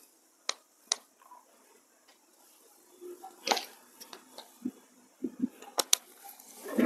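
A handloom cotton saree being unfolded and lifted over a table, with the cloth giving short, scattered rustles and soft flaps. The loudest rustle comes right at the end.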